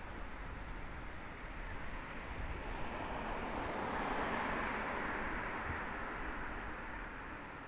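A vehicle passing by on the road: steady tyre and road noise that swells to a peak about halfway through, then fades away.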